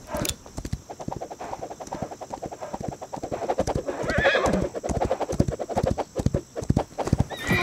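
Horse galloping, its hooves beating fast and continuously, with a whinny about four seconds in.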